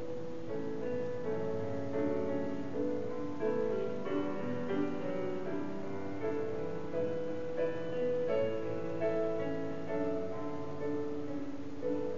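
Slow, gentle instrumental music with held notes, led by a piano-like keyboard.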